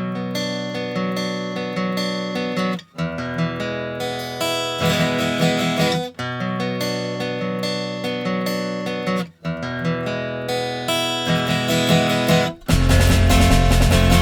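Intro music: strummed guitar chords in repeating phrases, each phrase ending in a brief break. Near the end a louder, fuller section with a heavy bass comes in.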